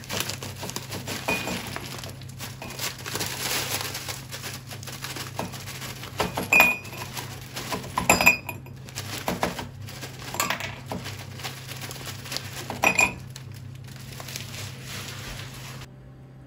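Ice cubes poured from a bag into a ceramic mug, clinking against the mug and each other in irregular clusters. The loudest clinks come about six and a half and eight seconds in, and again near thirteen seconds.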